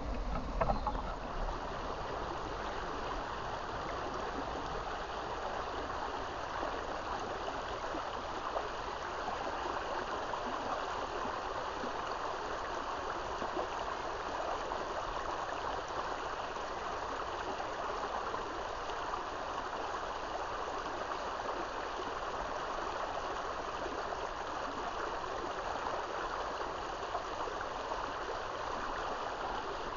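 Water of a small stream running, a steady, even rushing noise. There is a brief knock about a second in.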